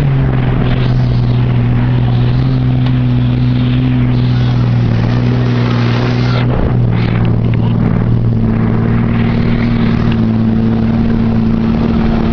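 A motor engine running steadily and loud under load, with a steady low hum and rushing noise; its note breaks and shifts slightly about six and a half seconds in.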